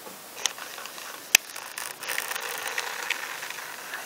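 Handling noise from a handheld camera: a few light clicks and one sharp click about a second in, followed by a second or so of rustling as the shot is zoomed in.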